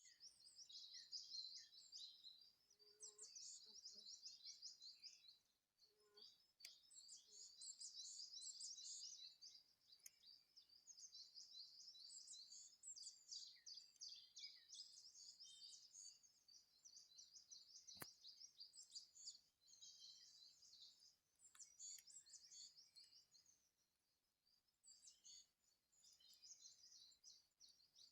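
A faint chorus of songbirds: many overlapping high chirps and trills, nearly continuous, easing into a short lull about 24 seconds in. A single sharp click about 18 seconds in.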